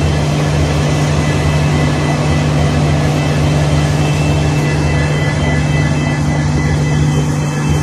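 An Indian Railways WDP4D diesel-electric locomotive, whose engine is an EMD 710-series two-stroke, idling steadily while it stands at the platform. It gives a constant low engine hum with a thin high whine above it.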